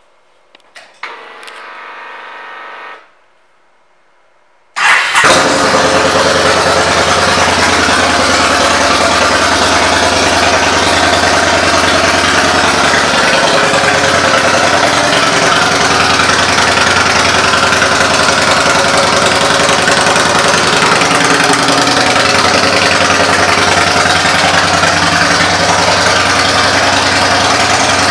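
A short steady hum, then the Yamaha Bolt's 942 cc air-cooled V-twin starts suddenly about five seconds in and settles into a steady idle through its aftermarket exhaust.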